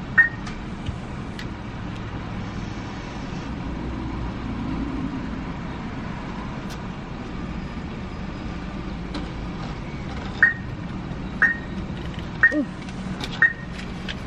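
Car cabin noise while driving: a steady engine and road drone. From about ten seconds in, a short high beep repeats about once a second.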